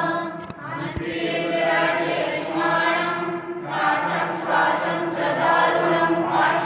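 Choral background music that starts suddenly: a choir singing long, held notes.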